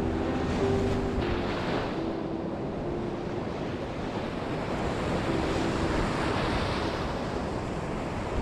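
Baltic Sea surf washing onto a sandy beach, a steady rushing noise. A few soft piano notes sound faintly in the first few seconds and again briefly past the middle.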